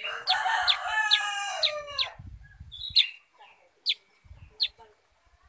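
A caged kutilang sutra bulbul giving short, sharp, falling chip notes, a few times at irregular intervals. For the first two seconds a louder rooster crow, held for about two seconds, sounds over them.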